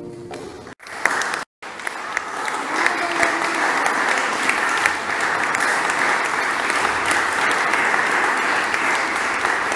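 The last held note of a violin and piano fades out, then, after a brief break about a second in, an audience claps steadily.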